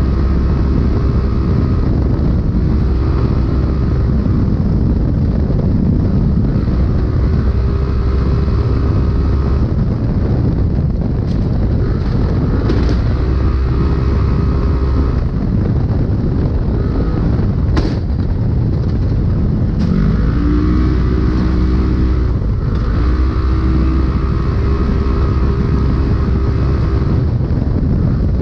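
Polaris RZR race UTV's engine running hard under load, heard from inside the cab with rushing noise and rattle. The revs mostly hold steady, then dip and climb again about two-thirds of the way through. A few sharp knocks stand out.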